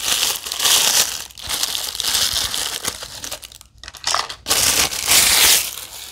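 Crinkly plastic wrapper from a mini-doll blind box being crumpled and handled, with a brief lull about three and a half seconds in.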